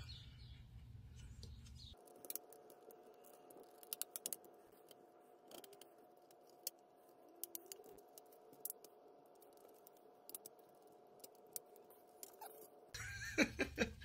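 Irregular sharp clicks and snaps as a plastic pry tool is worked around the edge of a laptop's bottom cover and its plastic retaining clips pop loose, over a faint steady hum.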